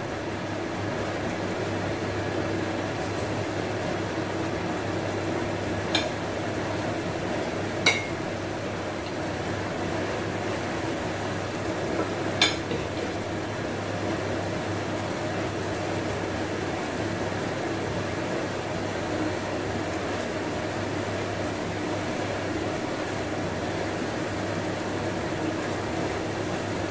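Ground spice paste frying in oil in a pan: a steady sizzle as the paste is cooked through. Three short, sharp clinks of a utensil against the pan come in the first half.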